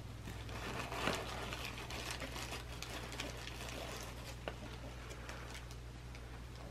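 Small clear plastic bags crinkling and rustling as they are handled, with scattered sharp clicks; a louder crinkle about a second in. A steady low electrical hum runs underneath.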